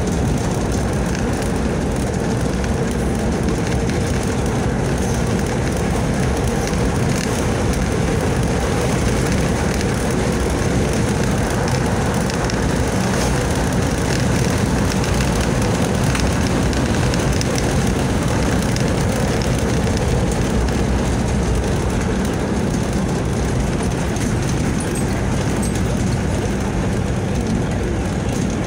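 Steady road noise from a vehicle driving on an asphalt highway, heard inside the cabin: engine drone and tyre rumble, even throughout.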